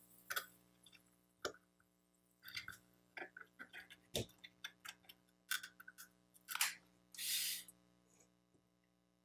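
Quiet small clicks and taps of tools working on the terminal end of an opened lithium-ion battery pack while soldering, over a low steady hum. A short hiss comes near the end.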